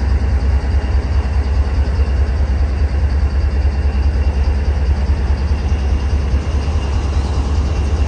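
GE diesel-electric locomotive engine idling: a steady, deep low rumble.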